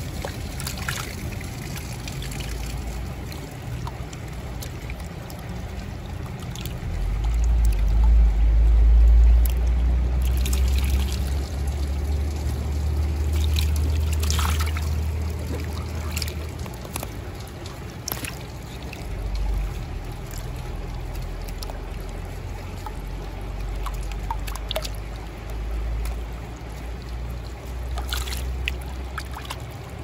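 Creek running high after heavy rain: a steady rush of water, with a few faint clicks. A deep low rumble swells up about a quarter of the way in, fades around the middle, and comes back for most of the second half.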